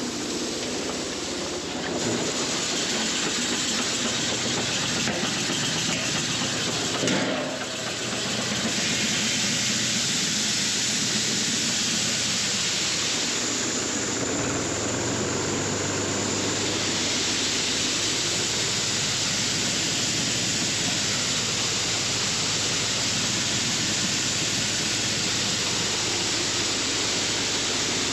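Farm machinery running steadily under a loud, even hiss, with a brief knock about seven seconds in and a low hum joining about halfway through.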